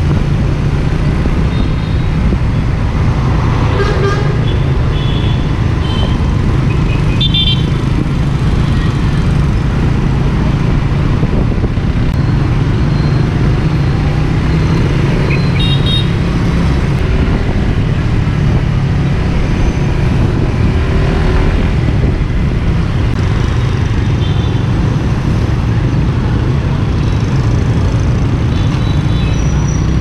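Suzuki GSX-R150's single-cylinder engine running as the bike rides through dense city traffic, under a steady low rumble of road noise. Short vehicle horn beeps sound several times, about 4, 7, 16, 25 and 29 seconds in.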